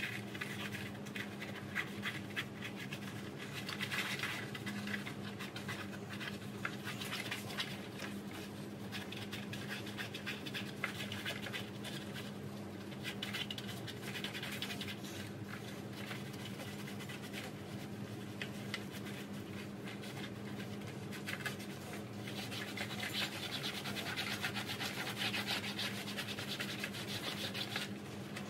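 A rag scrubbing the trays of a tackle box, working rust stains off with degreaser. It makes a continuous rapid scratching and rubbing that swells and eases as the strokes change, over a steady low hum.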